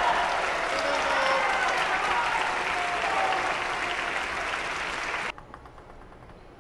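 Spectators clapping and cheering after a point is won at a table tennis match, with shouting voices over the applause. It stops abruptly about five seconds in, leaving only faint taps.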